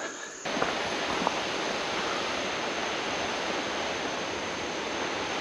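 Steady, even rush of a river waterfall, starting abruptly about half a second in.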